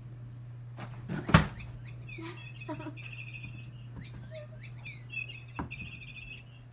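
Repeated short, high chirps and quick warbling trills, bird-like, over a steady low hum, with one sharp thump about a second in.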